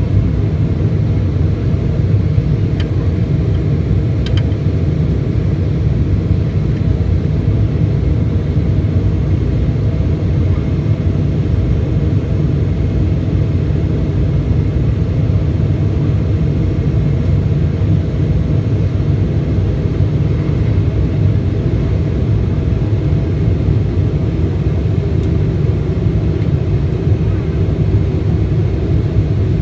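Steady low rumble of a Boeing 777-200 airliner's cabin, the engines and airflow running evenly, with two faint clicks a few seconds in.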